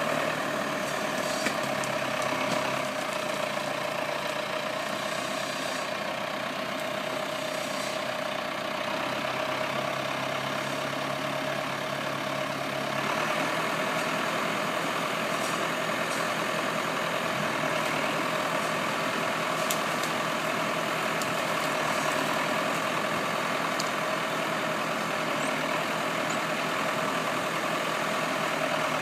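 Valtra 6200 tractor's diesel engine running steadily under light load while it powers the crane hydraulics of a Hypro 555 harvester head. Its low note shifts about three seconds in and again partway through.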